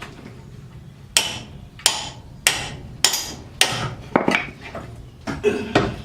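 Hammer blows on a rusted suspension part of a Mazda MX-5 (Eunos Roadster): about nine sharp metallic strikes, roughly two a second, starting about a second in, knocking the seized part loose.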